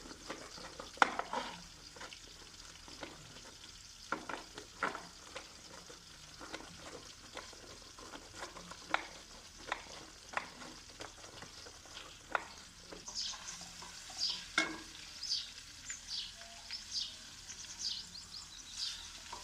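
Irregular knocks and scrapes as green chillies are crushed, over onions frying in ghee. About two-thirds of the way in, a run of short high chirps starts.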